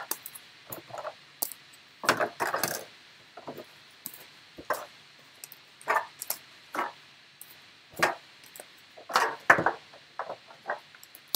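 Trading cards and hard plastic card holders being handled and set down in a sorting tray: irregular clicks, taps and light rustling.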